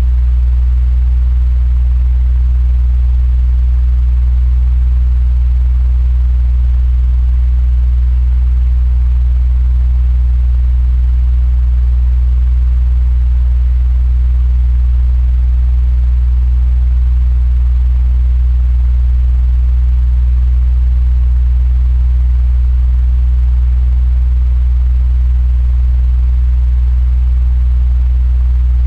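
Electric fan running steadily: a strong constant low hum with a soft even whoosh of moving air, no change in speed.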